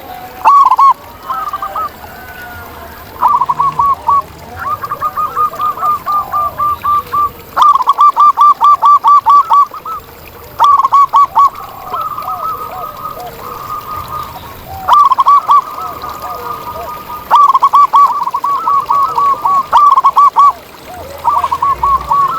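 Zebra doves (perkutut) calling: quick runs of short cooing notes, about seven a second, repeated in bursts of one to three seconds.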